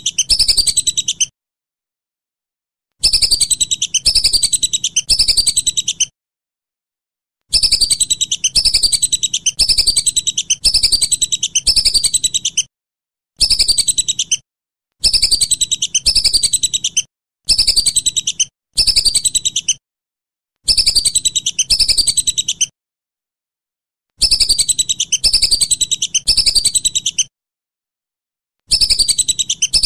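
Whistling duck (belibis) calling: bouts of high, descending whistled notes repeated about two a second. About ten bouts of one to five seconds each are broken by sudden gaps of complete silence.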